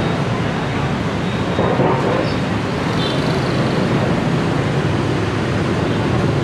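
Steady road-traffic noise with no single event standing out.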